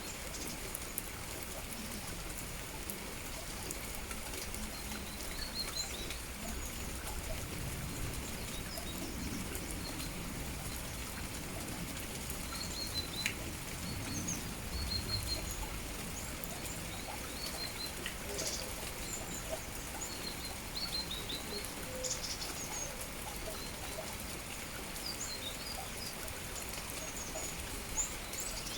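Steady rain falling, with small songbirds chirping on and off in short high notes throughout, and a few sharp ticks.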